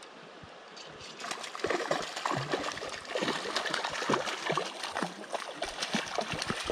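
A hooked brown trout splashing and thrashing at the surface of a stream as it is reeled in close, the water sloshing irregularly from about a second in.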